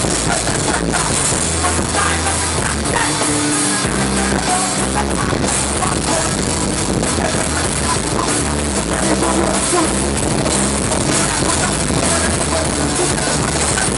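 Live rock band playing through a festival PA, drum kit and bass driving the music, heard loud and steady from within the crowd.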